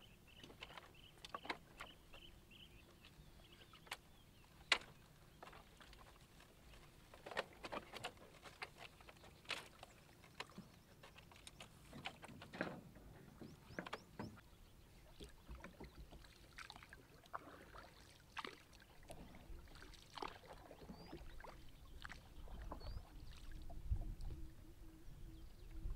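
Irregular light knocks, clicks and creaks of wood and bamboo: footsteps shifting on a flooded bamboo-slat platform and dogs scrambling into a wooden boat moored against it. One knock about five seconds in stands out as louder.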